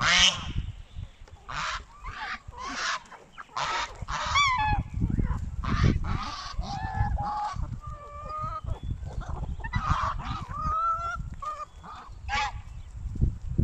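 Domestic geese honking again and again, short loud calls from several birds overlapping one another. A low rumble runs underneath.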